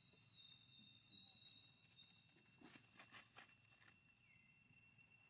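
Near silence: faint outdoor ambience with a steady high whine, two brief high-pitched calls in the first second and a half, and a few soft clicks around the middle.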